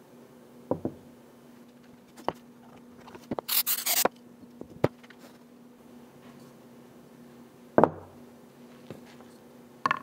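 Handling noise from assembling a wooden test-tube stand: scattered light knocks and clicks as the wooden parts and glass test tubes are set down and dropped into their holes, with a short rustle about three and a half seconds in and the loudest knock near the end. A faint steady hum runs underneath.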